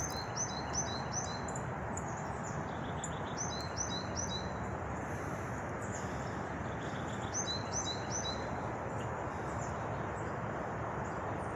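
A small songbird singing three short phrases a few seconds apart, each four or five quick repeated high notes, over a steady outdoor background rush.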